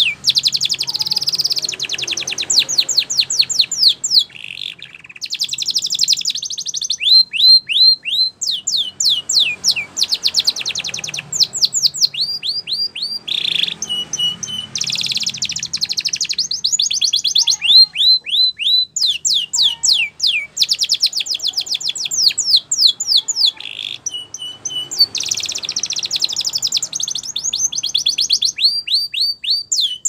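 Domestic canary singing a long, continuous song. Fast trills of rapidly repeated down-slurred notes alternate with slower runs of separate whistled notes, with only brief pauses between phrases.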